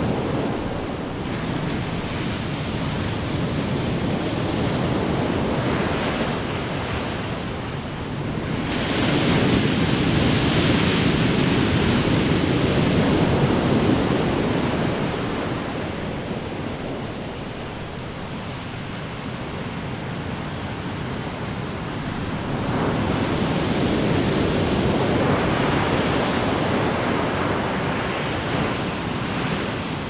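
Big ocean waves crashing as surf, with a steady wash between them. A wave breaks loudly about nine seconds in and surges for several seconds, and a second one breaks at about twenty-three seconds.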